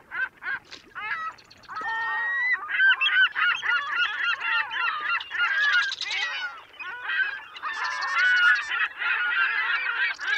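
A flock of birds calling: many short, rising and falling cries overlapping one another without a break.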